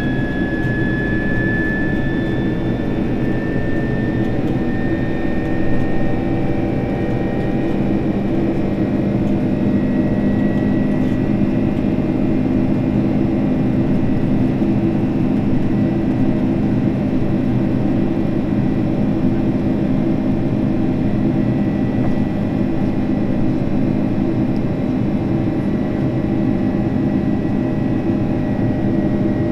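Cabin noise inside a Boeing 767-300ER in the climb: a steady jet engine drone with rushing air, with a thin whine that rises slightly over the first few seconds.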